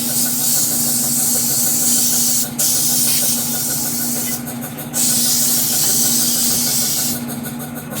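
Briggs & Stratton Classic single-cylinder flathead engine on a walk-behind lawn mower running at a steady speed. Over it come three loud hisses of a few seconds each, starting and stopping sharply.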